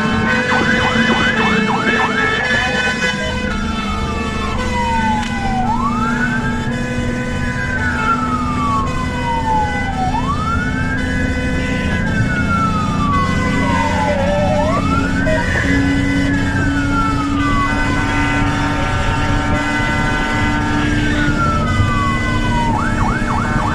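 Fire engine siren wailing in slow cycles, each rising quickly and sliding down over about three seconds, with quick yelping sweeps near the start and again near the end. A steady held tone and engine rumble run underneath.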